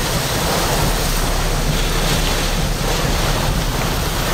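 Steady, loud rushing of strong thunderstorm wind and rain, with wind buffeting the microphone.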